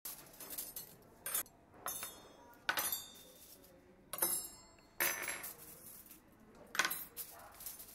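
Cutlery and dishes clinking and clattering: a string of sharp, irregular clinks with brief ringing, spaced a second or so apart.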